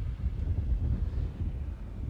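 Wind buffeting the microphone: an uneven low rumble that swells and dips.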